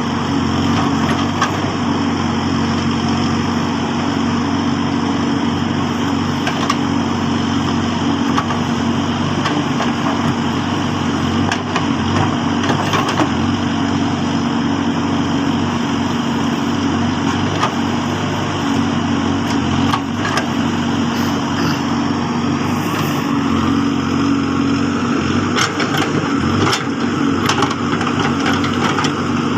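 Diesel engine of a Case backhoe loader running steadily while it works soil, with a few sharp knocks and clatters near the end.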